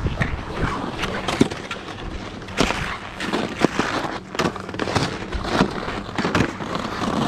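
Skis and ski boots scraping and knocking on hard-packed groomed snow, with irregular sharp knocks and clicks over a low rumble.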